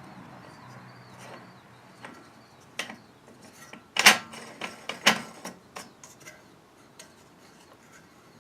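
Scattered metal clicks and clanks of tools and parts being handled while the wire brush is taken off the motor shaft. The two loudest clanks come about four and five seconds in, the first with a short ring.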